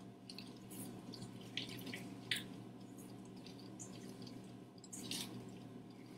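A spatula stirring a wet, chunky eggplant and tahini dip in a stainless steel mixing bowl: faint irregular squelches and scrapes, a little louder about two seconds in and again about five seconds in, over a steady low hum.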